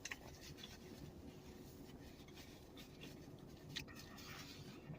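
Faint close-up chewing of a mouthful of pulled pork sandwich, with a few small mouth clicks, one sharper click near the end.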